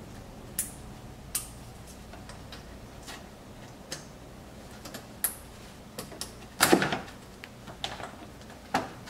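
Irregular light clicks and taps of composite engine-compartment trim pieces being handled and pressed into place, with a louder cluster of knocks about two-thirds of the way through.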